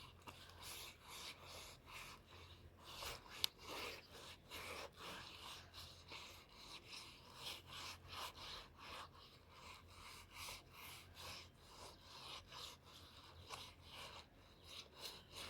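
Faint, repeated scraping strokes, about two a second, with one sharp click a few seconds in.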